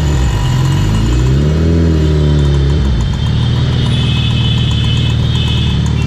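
Suzuki Hayabusa's inline-four engine running, its pitch rising and falling with the throttle.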